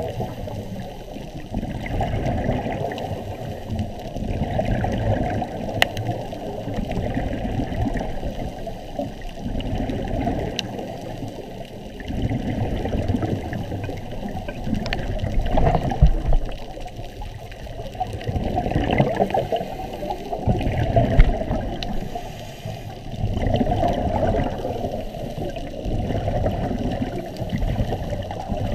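Scuba diver breathing through a regulator underwater: exhaled bubbles gurgle in swells that rise and fade every few seconds, with a few small clicks.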